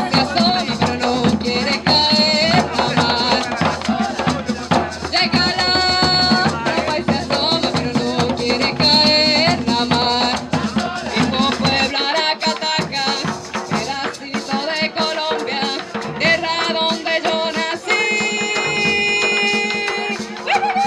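Live cumbia band playing an instrumental passage: a pitched lead melody over shaken maracas and hand drums. The low drum part drops out about twelve seconds in, leaving the melody and maracas.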